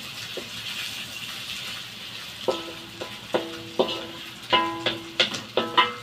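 Fish cake and mushroom cake sizzling in a metal wok while a wooden spatula stirs them. From about two and a half seconds in, the spatula knocks against the wok several times in quick succession, and each knock sets the wok ringing with a short pitched tone.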